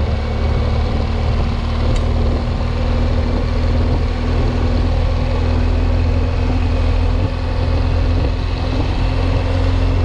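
Motorcycle engine running steadily on the move, a constant drone over low road and wind rumble.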